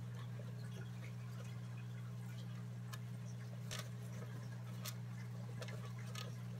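Pet mice scrabbling in wood-shaving bedding in a glass tank: a few faint, sharp clicks and rustles over a steady low hum.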